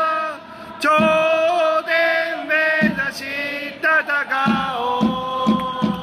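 Cheering-squad trumpets playing a baseball supporters' anthem in long held notes, with a crowd of fans chanting along.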